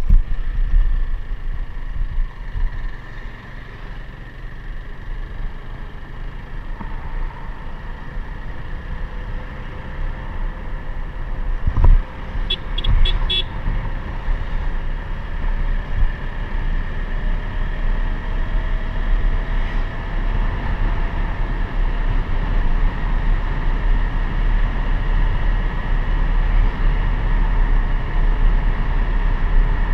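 Motor vehicle running on the road with a steady low rumble and wind rumble on the microphone; its engine note slowly rises in pitch through the middle. Roughly halfway through, a vehicle horn toots four times in quick succession.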